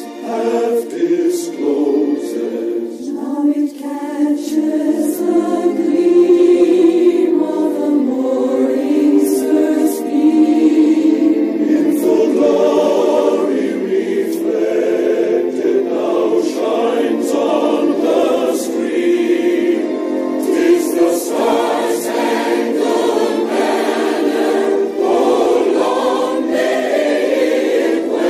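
Choral music: a choir singing slow, held notes.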